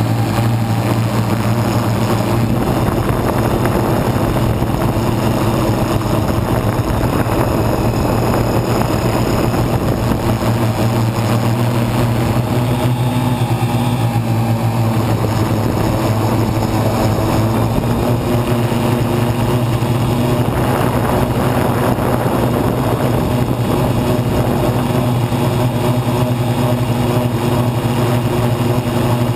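MikroKopter multirotor's brushless motors and EPP1245 propellers buzzing steadily as the copter lifts off and climbs, heard up close from the camera on its frame.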